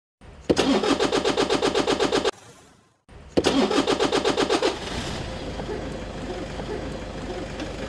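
A car engine cranked by its electric starter motor: a first crank of about two seconds that does not catch, then a second crank that catches after about a second and settles into a steady idle.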